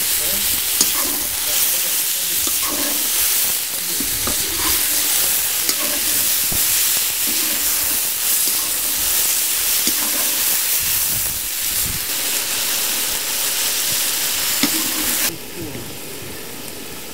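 Chunks of meat sizzling hard in hot oil in a kazan over a high wood fire, searing to form a crust, while being stirred with a metal spoon. The sizzle turns much quieter about fifteen seconds in.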